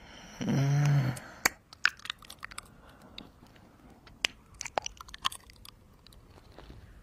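Close-miked ASMR ear kisses: a short hummed 'mm' about half a second in, then a run of wet lip smacks and mouth clicks at irregular intervals.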